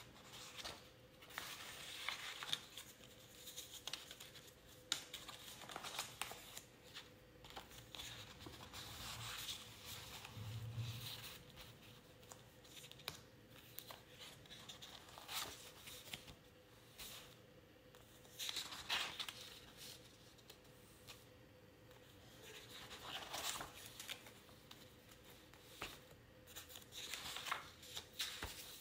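Sheets of sketch paper and book pages being turned and handled by hand: a string of separate paper rustles and swishes every few seconds, over a faint steady hum.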